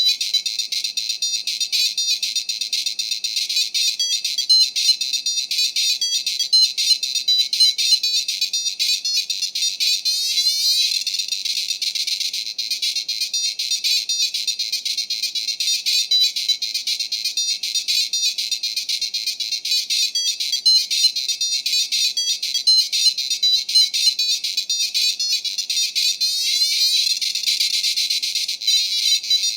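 PC speaker of an IBM XT-type computer playing demoscene beeper music: a thin, high-pitched, buzzy tune with a fast, even pulse and short pitch slides.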